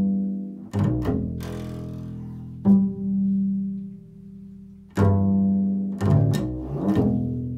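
Upright double bass played pizzicato in an improvised line: about seven low plucked notes, each starting sharply and ringing out, with a quicker run of notes near the end.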